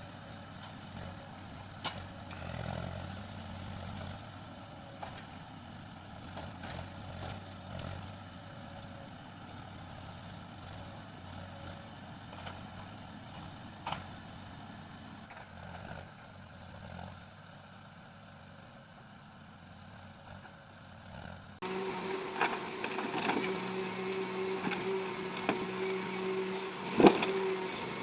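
Logging machine's engine running steadily while it handles logs, with an occasional knock. About two-thirds of the way through, the sound jumps louder: a steady droning tone with frequent sharp knocks and clanks, one loud clank near the end.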